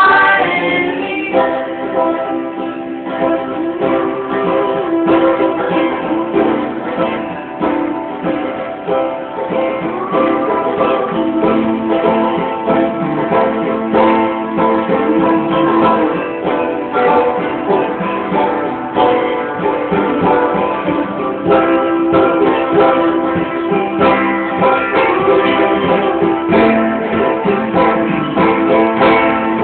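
Live band playing acoustic music, with plucked string instruments to the fore. It is recorded on a cellphone's microphone, so the sound is thin and lacks treble.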